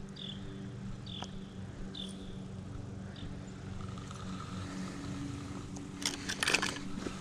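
Steady low mechanical hum, like a distant motor, with a few short high chirps in the first two seconds and a cluster of clicks and rustles about six seconds in.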